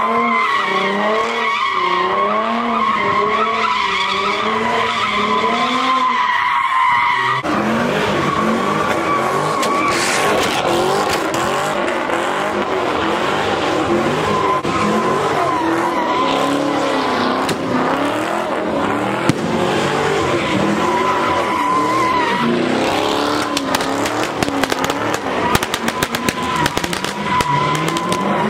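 Muscle cars doing donuts: a Ford Mustang and then a Chevrolet Camaro spinning their rear tyres on asphalt. The tyres give a steady high squeal, over engine revs that rise and fall about once a second as each car circles.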